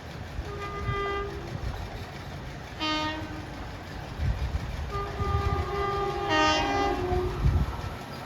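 Train horn sounding three times over the low rumble of a moving train: a blast of under a second, a short sharp toot about three seconds in, and a longer blast with two tones overlapping in the second half.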